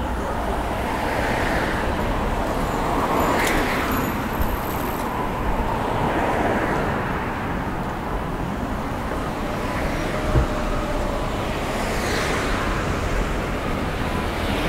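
Street traffic: cars passing one after another on the road alongside, each swelling and fading, with one short thump about ten seconds in.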